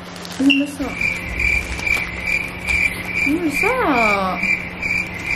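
Cricket chirping: a high, steady chirp repeating about twice a second over a low hum, with a short rising-and-falling voice sound a little past the middle.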